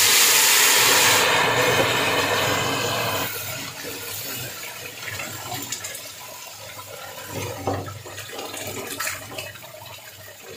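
Liquid poured into a pot of hot oil and browned sugar, hitting it with a loud hiss and bubbling that drops off after about three seconds. Quieter bubbling follows, with a metal spoon clinking and scraping against the aluminium pot as it is stirred.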